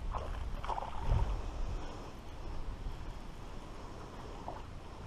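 Wind rumbling on the microphone, strongest in the first couple of seconds, with a few faint short sounds near the start.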